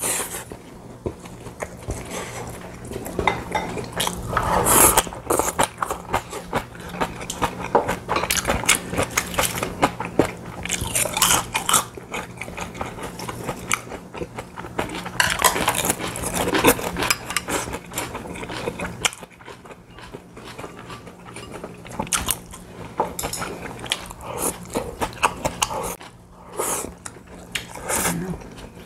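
Close-miked eating: chewing, sips of soup from ceramic bowls, and chopsticks clicking and scraping against the dishes, with a faint steady low hum underneath.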